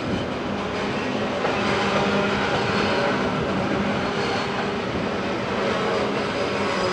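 Covered hopper cars of a freight train rolling across a steel truss bridge: a steady rumble and clatter of wheels on rail, with thin high tones over it.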